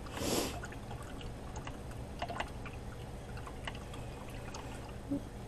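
A watercolour brush swished in a jar of rinse water, a short splashy hiss at the start, followed by scattered light clicks and taps.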